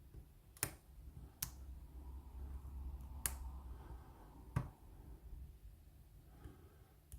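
Four sharp, faint clicks from a pick and tension wrench working a Lockwood oval pin-tumbler cylinder, spaced about a second or more apart, over a faint low hum. The lock keeps falling back into a false set as the pins click.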